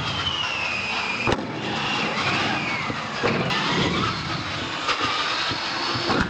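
Radio-controlled monster truck's motor whining, rising and falling in pitch with the throttle, with tyres rolling on the track surface. Sharp thumps about a second in, a little after three seconds and near five seconds as the truck lands off jumps and tumbles.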